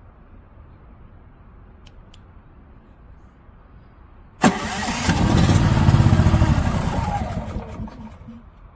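A WEN portable inverter generator's engine starting abruptly, running up loud, then easing down in pitch and volume as it settles.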